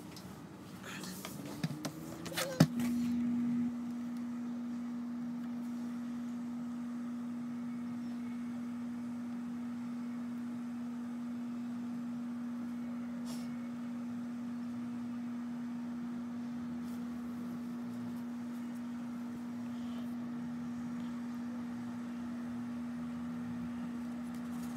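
A Scotch thermal laminator runs with a steady low hum as a laminating pouch feeds through its rollers, after a sharp click about two and a half seconds in.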